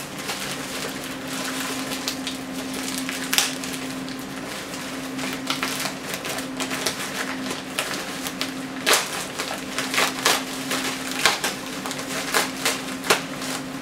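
Plastic packaging crinkling and rustling as it is handled and pulled open, with irregular crackles and several sharper, louder ones in the second half.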